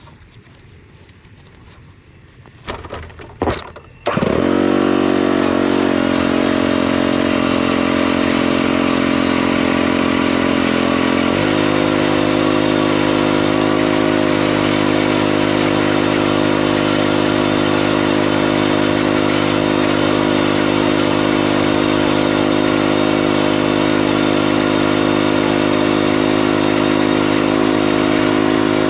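A vehicle engine is cranked over in a few short bursts, catches about four seconds in, and then runs steadily. Its note steps down slightly around seven seconds after it starts.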